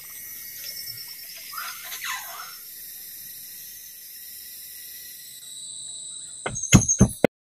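Steady high-pitched chorus of tropical forest insects, crickets and cicadas. Near the end it gives way to a rapid run of loud, sharp knocks that cut off abruptly.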